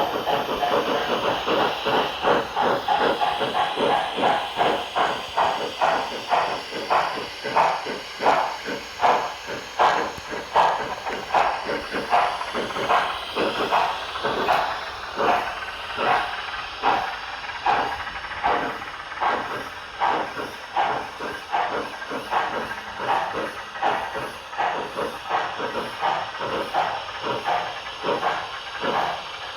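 HO scale model steam locomotive's LokSound 5 sound decoder playing steady steam exhaust chuffs through its speaker, about two a second, as the model runs.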